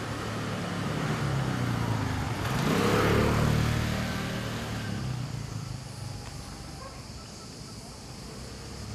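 A motor scooter passing by, its engine getting louder to a peak about three seconds in, then fading away.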